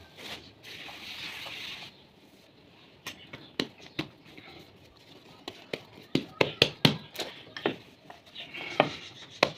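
A plastic bag of flour rustles as flour is shaken out onto a tiled kitchen counter. Then bare hands spread the flour and handle pizza dough on the tile, making a run of irregular sharp taps and slaps that come faster near the end.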